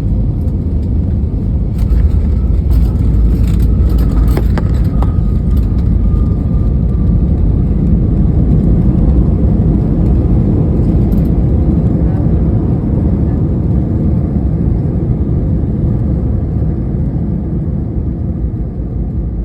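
Airbus A320 cabin noise during the landing: a loud, steady low rumble from the engines and the airframe, with several sharp knocks a few seconds in. The rumble eases gradually toward the end.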